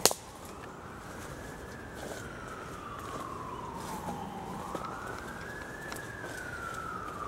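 Police siren wailing, one slow rise and fall about every four seconds. A single sharp knock sounds at the very start.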